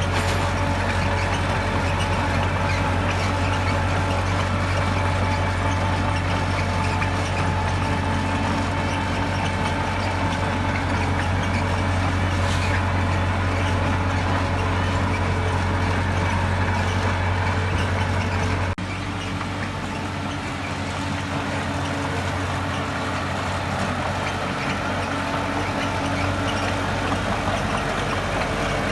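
Heavy diesel engine of earthmoving equipment running steadily with a strong low drone; about two-thirds of the way through, the drone drops off abruptly and the sound gets a little quieter.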